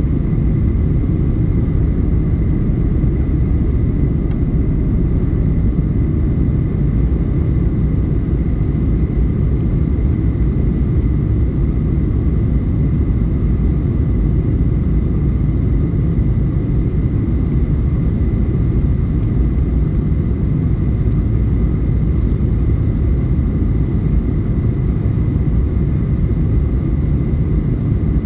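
Jet airliner cabin noise heard from a window seat: a steady low rumble of engines and rushing air as the plane descends to land, with a faint steady high whine over it.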